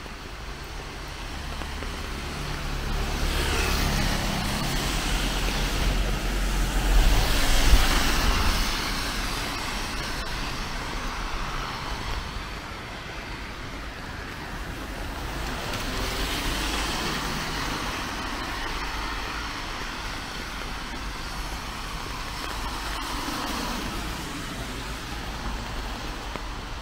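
Road traffic passing on a wet city street: a steady hiss of tyres on the wet road. A heavy vehicle's engine rumble builds to the loudest pass about a quarter of the way in, and more vehicles go by around two-thirds of the way through and again near the end.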